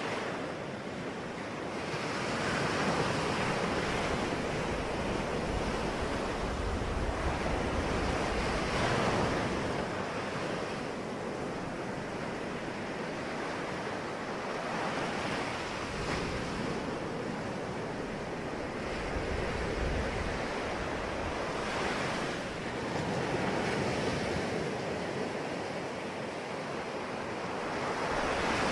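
Ocean waves breaking and washing on the shore, a steady rushing surf that swells with each wave every few seconds, with some wind noise on the microphone.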